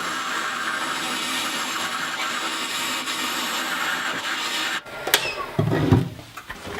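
Wood lathe running with a turning tool cutting a hardwood knob blank, a steady scraping hiss that stops suddenly about five seconds in. A click and a few short knocks follow.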